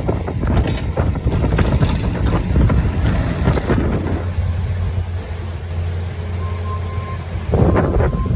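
Strong wind buffeting the microphone: a heavy low rumble with gusty surges. It eases about four seconds in, then a fresh gust hits near the end.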